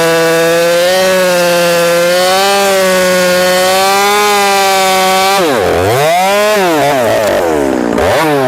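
Two-stroke chainsaw running at high revs, held steady as it cuts through a felled log. Past the middle the revs drop sharply and climb back twice as the throttle is let off and reopened.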